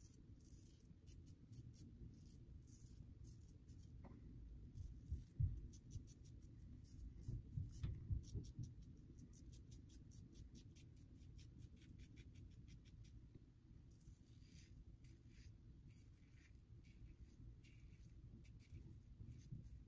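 Wolfman WR2 safety razor with a Polsilver SI blade cutting through lathered stubble: faint, quick scratchy strokes again and again, over a low steady hum. A few dull low thumps come about five to eight seconds in.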